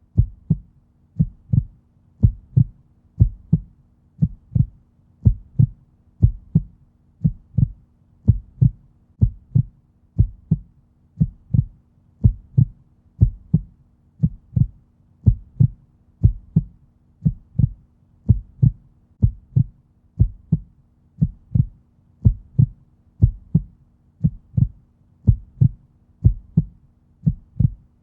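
Heartbeat, steady lub-dub double thumps repeating about once a second at a resting heart rate.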